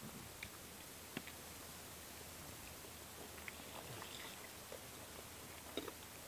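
Quiet outdoor ambience: a faint steady hiss with a few scattered small clicks and taps, the sharpest near the end.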